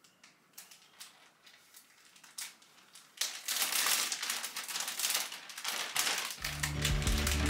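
Clear plastic vacuum storage bag crinkling while its green zip seal is pressed closed and worked with the slider clip, with quick small clicks at first and a loud dense crinkling from about three seconds in. Background music comes in near the end and is the loudest thing.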